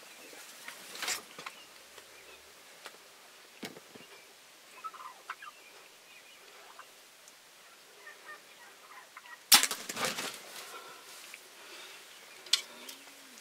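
Wild turkeys gobbling: a loud, close gobble about two-thirds of the way through, a fainter one near the start, and softer turkey calls in between. A single sharp click comes near the end.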